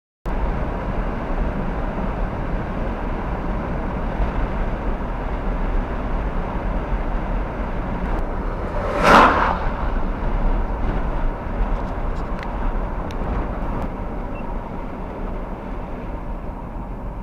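Steady rushing noise with a deep rumble, and one brief, louder swish about nine seconds in.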